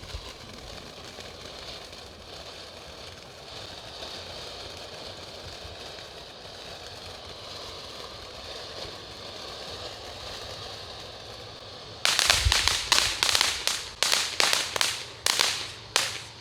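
A lit consumer firework hisses steadily for about twelve seconds, then goes off in a rapid, irregular string of loud sharp cracks and bangs, like a string of firecrackers.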